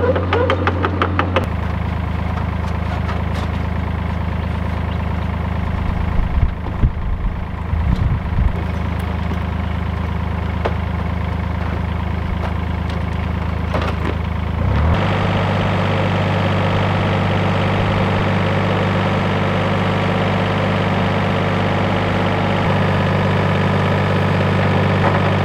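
Yanmar mini excavator's diesel engine running steadily, with some clanking about six to eight seconds in. The engine revs up about fifteen seconds in as the excavator lifts a car body on chains.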